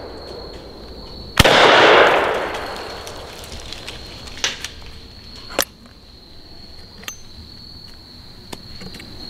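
A single gunshot, about a second and a half in, from a 12-gauge break-action double-barrel shotgun firing a pistol cartridge through a caliber adapter, with a long echo after it. A few light metallic clicks follow as the shotgun is broken open and the spent case ejects, over a steady high chirring of crickets.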